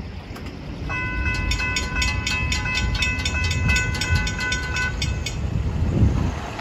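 Railroad crossing bell ringing rapidly, about four strikes a second, while the crossing lights flash and the gates rise. The bell stops about five seconds in. A low rumble runs underneath, and cars start across the crossing near the end.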